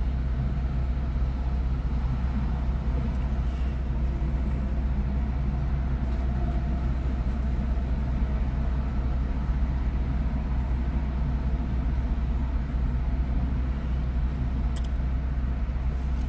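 Steady low rumble of freeway traffic, with heavy trucks passing.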